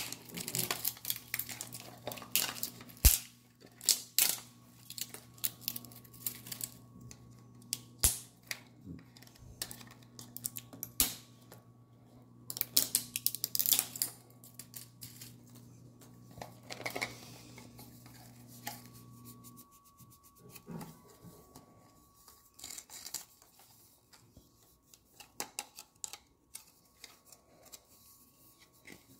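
Hands handling a plastic Magic Mixies Mixlings toy cauldron and its wrapping: scattered clicks and taps on hard plastic with short bursts of crinkling and tearing, busiest in the first half and thinning out near the end.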